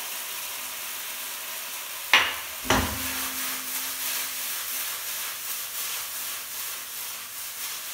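Spinach pasta sizzling in a wok over a gas flame as soy sauce goes in. About two seconds in come two sharp metal clanks as the wok is lifted and tossed on the burner grate, and the second clank rings on briefly.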